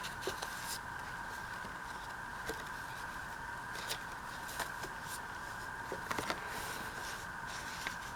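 Paper being handled and tucked into the pages of a handmade junk journal: scattered soft rustles and small taps, over a steady faint high two-note hum.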